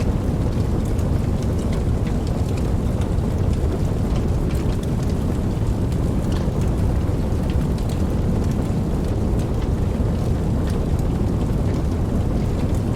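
Steady rain: a dense, even wash heaviest in the low range, with scattered sharp taps of individual drops.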